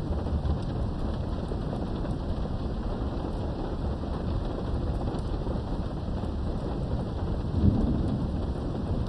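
Steady rain with low rolling thunder, heard from behind a window; a thunder rumble swells about three-quarters of the way through.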